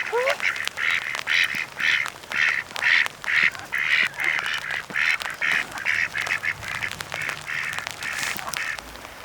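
Domestic ducks quacking in a steady run, about two quacks a second, growing fainter near the end.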